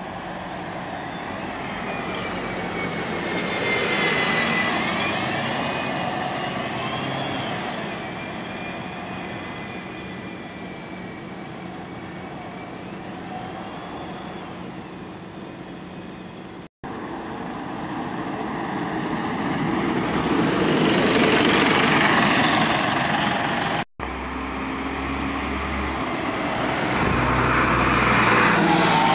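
Diesel double-decker buses driving past at close range, their engines running with a whining drivetrain tone that glides up and down in pitch. A brief high squeal comes about two-thirds through, and the sound breaks off twice for a moment.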